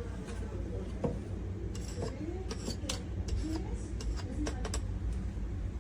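Light clicks and clinks of espresso-making utensils, metal and ceramic being handled, a few scattered sharp knocks over a steady low hum.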